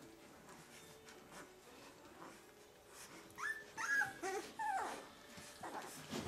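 Two-week-old Leonberger puppies whimpering and squealing while they jostle to nurse, a handful of short, high cries about three to five seconds in, with only faint shuffling before.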